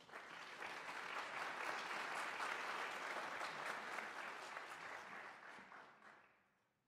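Concert audience applauding; the clapping swells at once, holds for about five seconds, then dies away.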